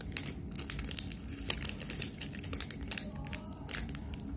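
Chocolate bar wrapper, a paper sleeve with a foil inner wrap, crinkling and crackling in short irregular bursts as it is handled and peeled open.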